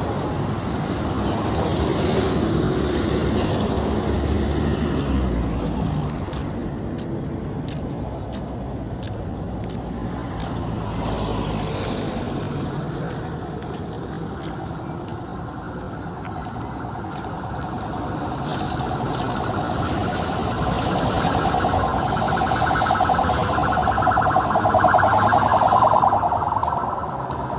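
Road traffic: vehicles running past with engine and tyre noise, and a humming drone that grows louder over the last several seconds.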